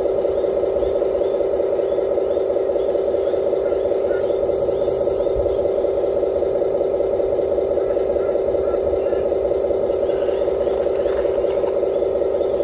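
Radio-controlled scale construction models running: a steady, unchanging mechanical drone, with faint scraping and ticking as the excavator's bucket works the gravel.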